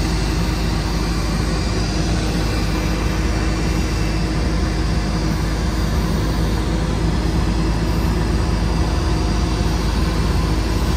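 Steady low drone of a pushback tug's engine as it pushes an Airbus A321 backward on a towbar, heard from inside the tug's cab, with the airliner's jet engine noise mixed in.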